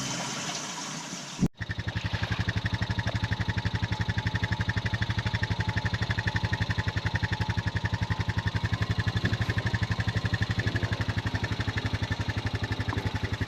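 Intro music fades out and cuts off, then a motor runs with a steady, even throb.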